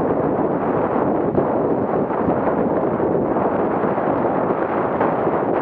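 Steady wind rumble on the microphone of a camera riding on a Suzuki Jimny driving a dirt road, mixed with the vehicle's road noise.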